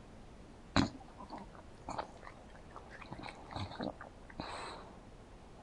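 English bulldog's mouth noises: a sharp click a little under a second in, then a run of short wet smacks and clicks of the lips and jaw. A noisy breath comes through the open mouth about four and a half seconds in.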